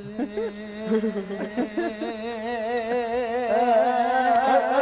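A cappella vocal music in the nasheed style: voices hum a steady low drone while a melody line wavers above it with strong vibrato.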